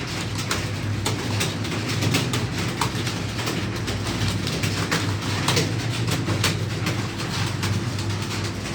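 Many computer keyboards clattering at once as several typists work through a timed typing test: a dense, irregular patter of key clicks over a steady low hum.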